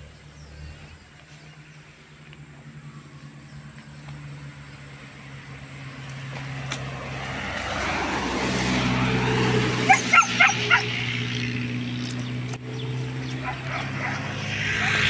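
A dog barks four times in quick succession about ten seconds in, over a motor vehicle that draws closer and grows steadily louder.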